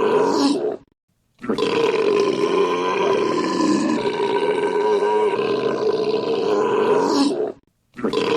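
A man's long, drawn-out belch, looped: the tail of one belch cuts off within the first second, and after a half-second of silence a single unbroken belch runs about six seconds. It stops abruptly, and after a brief silence the next one starts near the end.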